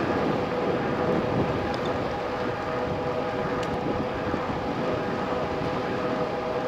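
RadRover fat-tire electric bike in motion: a steady rush of road and tyre noise with a held, even tone over it.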